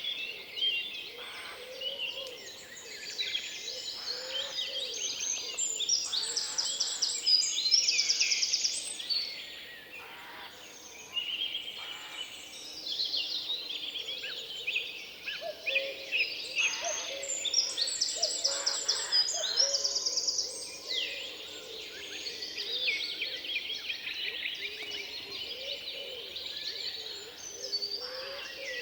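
Several songbirds singing over one another in a forest, with rapid trills and quickly repeated high notes, and a lower call coming in now and then.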